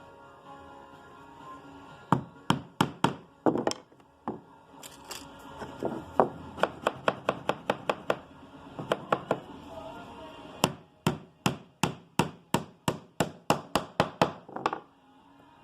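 Hammer striking a nail into wood in several runs of quick taps, the last run steady at about three blows a second, as a glued half-lap frame joint is nailed down.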